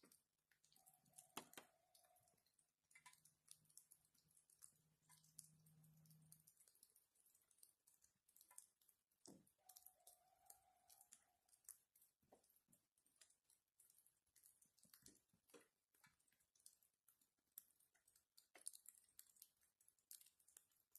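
Near silence with faint scattered clicks, and a faint low hum during the first few seconds. Two faint held tones, each about a second and a half long, sound about eight seconds apart.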